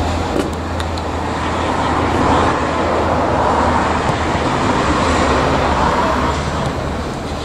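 Road traffic noise: a passing vehicle swells to its loudest in the middle and fades again, over a steady low hum.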